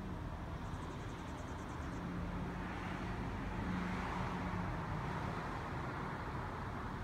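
Road traffic: a car passing, its noise swelling to a peak about four seconds in and easing off, over a steady background of traffic noise.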